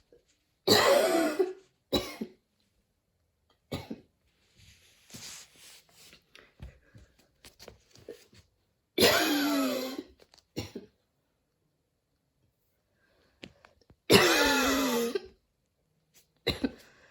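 A girl's wheezy coughing: three long, loud coughing fits with a wavering, whistling wheeze, and shorter, quieter coughs and breaths between them. She puts the coughing down to running in allergy season.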